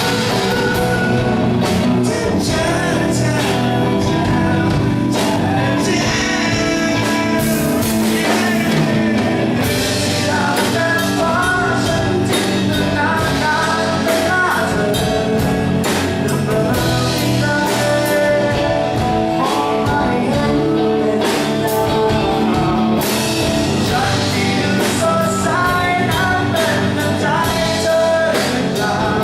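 Live rock band of singer, electric lead guitar, bass and drum kit playing a song, with the vocal line sung over the band.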